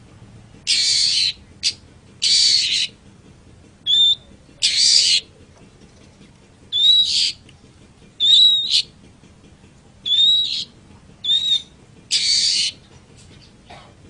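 Long-tailed shrike (cendet) calling: a string of harsh, rasping calls about half a second long, mixed with shorter clear whistled notes, roughly one call a second.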